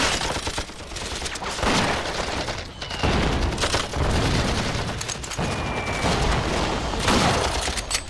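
Heavy battle gunfire: a dense, continuous fusillade of rifle and light machine-gun fire, the shots overlapping without a break.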